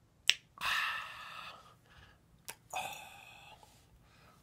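A person's breathy mouth sounds: a sharp click, then about a second of hissing breath, repeated about two seconds later.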